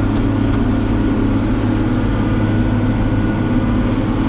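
Tractor engine running steadily while pulling a round baler through straw: a constant, even low drone.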